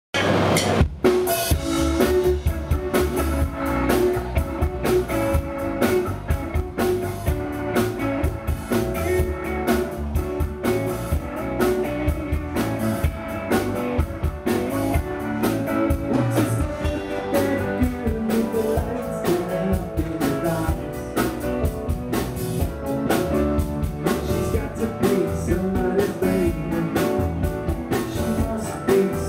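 Live rock band playing through a PA: electric guitar, bass, keyboards and a drum kit keeping a steady beat.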